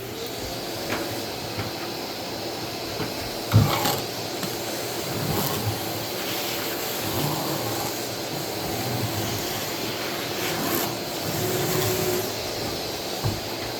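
Circular saw cutting through a solid ash tabletop, a steady whirring cut noise throughout, with a sharp knock about three and a half seconds in.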